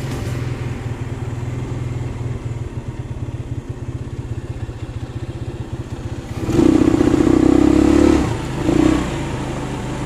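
A small motorbike running with a steady low rumble as it is ridden across rough grass. About six and a half seconds in it gets much louder for about a second and a half, then again briefly near nine seconds.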